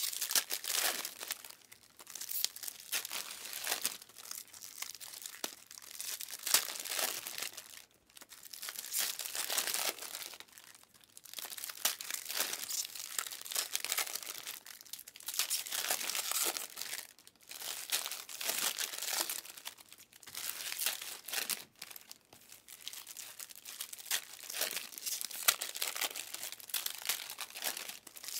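Plastic trading-card pack wrappers being torn open and crinkled by hand, in irregular bursts of crackling every second or two.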